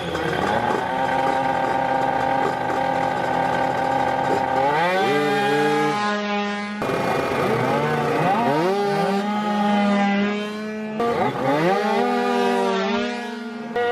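Pairs of racing scooters at a drag-race start, engines held at high revs and then launching, their pitch climbing steeply. This happens about three times, with abrupt cuts between the runs.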